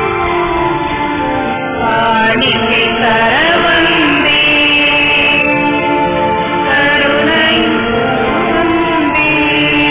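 Church hymn sung to a sustained organ or keyboard accompaniment; the singing voices come in about two seconds in over the held chords.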